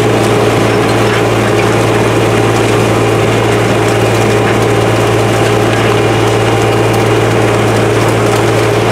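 Case IH 9150 four-wheel-drive tractor's diesel engine running steadily under load as it pulls a 13-shank Glencoe Soil Saver chisel plow through the soil.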